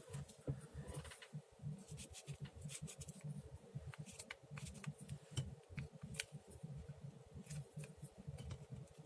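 Paper being handled and pressed down by hand: faint, irregular crinkles and light taps.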